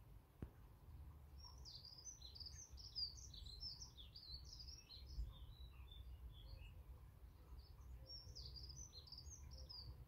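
A songbird singing quick, high-pitched warbling phrases, one long run and then a second after a short pause. A single faint tap comes just before the song, under a low background rumble.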